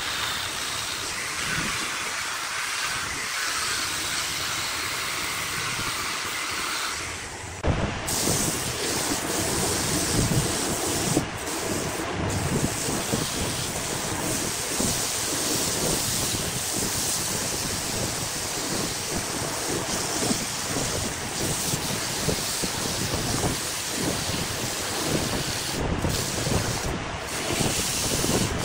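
Wood lathe working a spinning workpiece: a steady hiss for the first several seconds, then an abrupt change to a coarser, rasping scrape full of quick irregular strokes, as a tool or abrasive works the turning wood.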